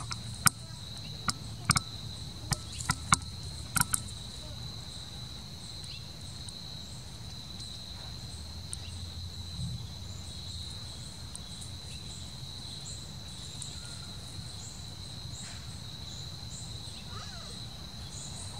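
Steady high-pitched trill of outdoor insects, with a string of about eight sharp clicks in the first four seconds.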